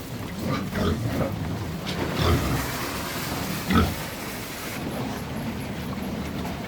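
Pigs grunting: several short grunts, the loudest about two seconds in and near four seconds in, over steady low background noise.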